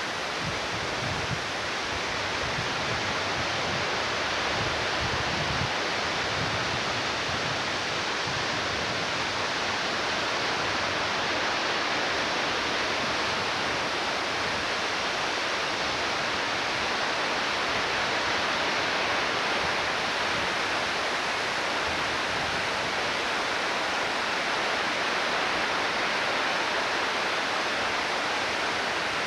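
Creek in flood: fast, high water rushing in a steady, unbroken roar.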